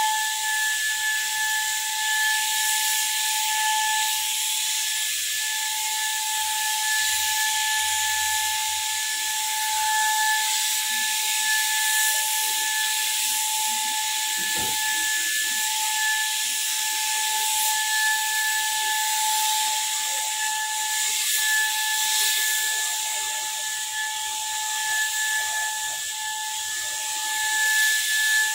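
Electric paint spray gun running: a steady motor whine under a continuous hiss of air and paint from the nozzle.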